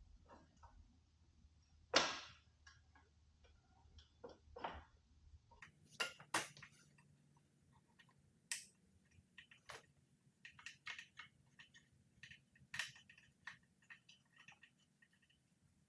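Scattered clicks and knocks of an e-bike rear rack and its bolts being handled and fitted, the loudest knock about two seconds in.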